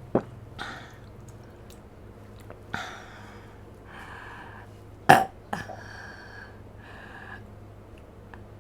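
A woman burping several times with her mouth open after drinking yogurt, in short separate burps. The loudest and sharpest comes about five seconds in.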